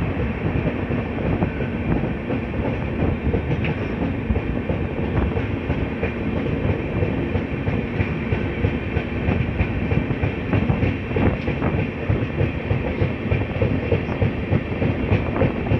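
Passenger train running at speed, heard from an open coach door: a steady, loud rumble of wheels on the rails, with scattered clicks as the wheels pass over rail joints.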